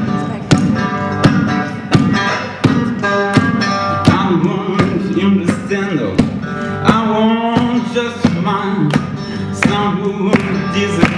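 A man singing to his own guitar playing, over a steady beat that hits about every 0.7 seconds.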